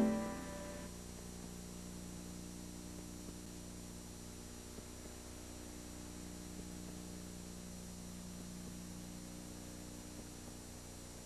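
Music fades out within the first second, leaving a faint, steady electrical hum with hiss.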